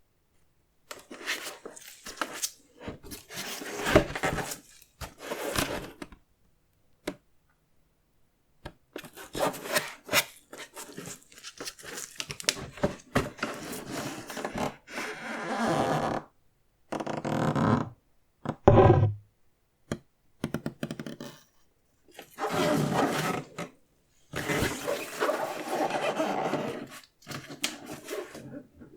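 Sneaker box and its paper packing being handled and opened: rustling and scraping in bursts of a second or two, with short silent gaps between them.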